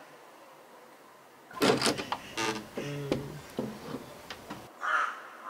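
Wooden door creaking and knocking in a string of short creaks and bumps, starting about a second and a half in, with one more brief creak near the end.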